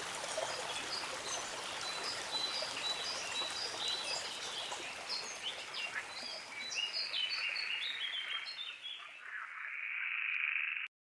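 A stream rushing steadily with small birds chirping over it. Near the end the water thins out into a brief hiss, then the sound cuts off suddenly.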